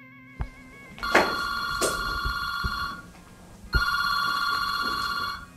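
Telephone ringing twice with an electronic trilling ring, each ring about two seconds long: an incoming call. A few short soft knocks sound around the rings.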